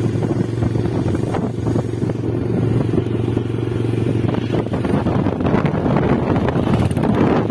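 Motorcycle engine running steadily while riding along a road, with wind buffeting the microphone.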